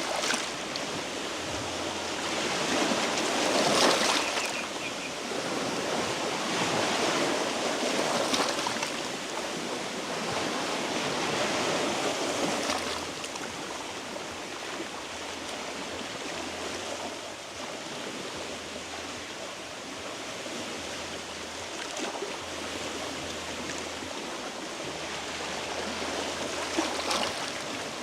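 Small sea waves washing against a rocky shore: a steady wash that swells and ebbs several times, loudest about four seconds in.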